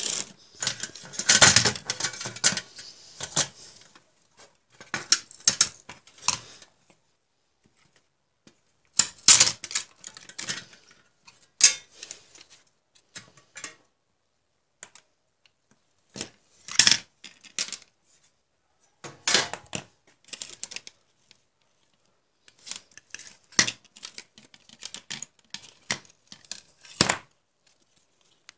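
Irregular clicks, knocks and short rattles of an LCD monitor's circuit boards and sheet-metal chassis being handled and taken apart by hand, with quiet gaps between.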